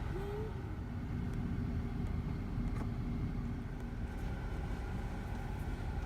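A vehicle engine running steadily with a low rumble and a constant hum, with a short vocal glide from a child at the very start.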